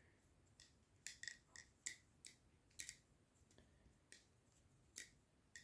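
A replica balisong (butterfly knife) trainer being flipped in the hand: its handles and blade clicking against each other. About a dozen light, sharp clicks come at uneven intervals.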